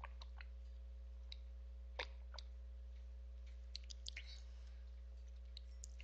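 Faint scattered clicks over a steady low hum: a handful of single ticks, the loudest about two seconds in, and a quick run of four or five clicks about four seconds in.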